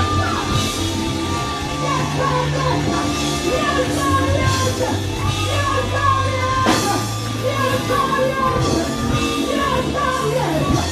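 Live gospel praise music in a congregation, with held bass notes under drums and several cymbal crashes, and voices singing and shouting over it.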